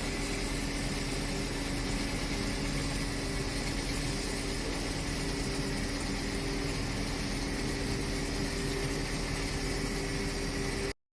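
A machine running with a steady hum: several constant tones over an even hiss. It cuts off abruptly near the end.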